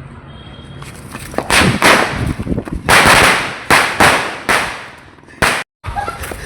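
Diwali firecrackers going off: about seven sharp bangs in quick, uneven succession, each trailing off in an echo.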